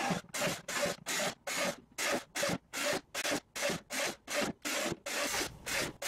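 Bosch cordless drill boring a string of holes through a thin plastic tub, in short separate bursts about three a second.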